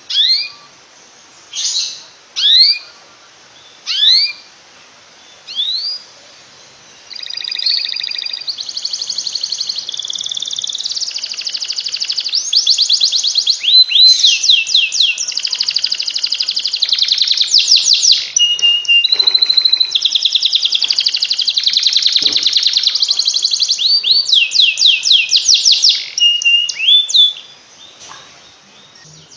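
Domestic canary singing: first five separate upward-sweeping chirps, roughly one every second and a half. Then, about seven seconds in, a long unbroken song of rapid trills and rolls that lasts some twenty seconds, the continuous 'ngekek' song that canary keepers play to train other birds.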